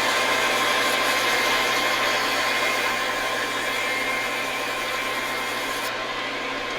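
Metal lathe running steadily, a motor whine over a steady rushing noise, while it turns the steel vise handle bar.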